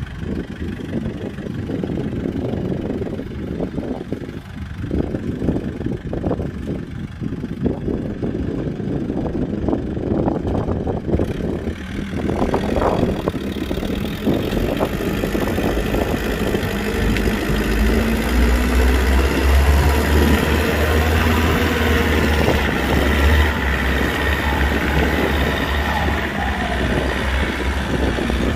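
Kubota tractor's diesel engine running. It grows louder about twelve seconds in and settles into a heavy, steady low drone from about eighteen seconds.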